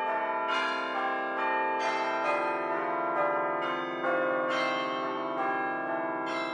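Bells ringing in a steady run, a new stroke about twice a second, each tone ringing on under the next.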